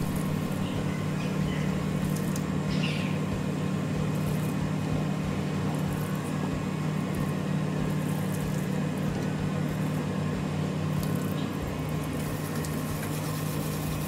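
Steady rush of water running from a garden hose, with a low steady hum underneath.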